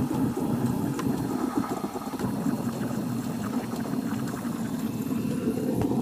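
Steam wand of a DeLonghi Magnifica S (ECAM23210B) espresso machine frothing milk in a mug: a steady, low-pitched hiss of steam bubbling through the milk.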